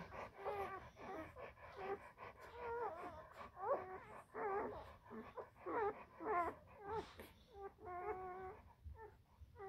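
Newborn Central Asian Shepherd (Alabai) puppies squeaking and whimpering as they nurse: a steady string of short, high cries that bend up and down, with one longer held cry near the end.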